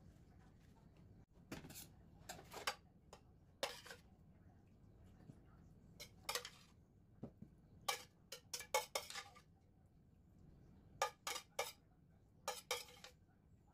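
Cutlery and dishes clinking, in short irregular clusters of sharp knocks and brief scrapes.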